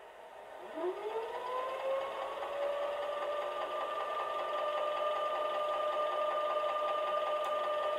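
Model electric locomotive (class E 145) sounding a motor whine from its onboard sound. The whine rises in pitch within about a second, then holds steady at one pitch.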